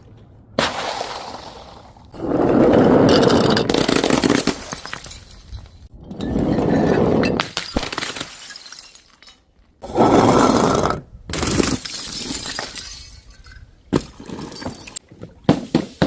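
Glass bottles breaking and shattering in a series of loud crashes, each lasting a second or two, with loose glass shards clinking in quick sharp clicks near the end.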